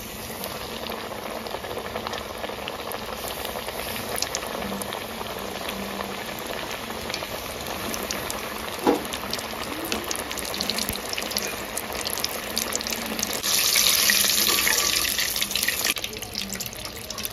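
Flour-coated chicken strips deep-frying in hot oil in a wok: a steady sizzle full of small crackles and pops, growing louder for a couple of seconds near the end.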